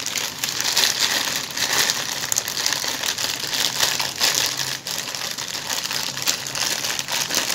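Clear plastic bag crinkling and rustling without pause as hands work a figure's head out of it, a dense crackle of many small rustles.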